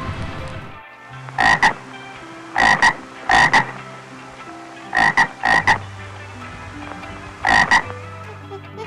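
Frog croaking in about six quick double croaks, spaced roughly a second apart.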